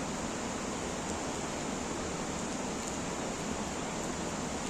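Muddy mountain river in spate after heavy rain, rushing over boulders: a steady, even sound of water.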